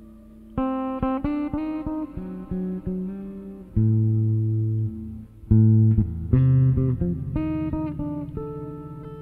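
Solo jazz played on a sunburst Stratocaster-style electric guitar: plucked chords and single notes over deep bass notes, with a chord left ringing near the end.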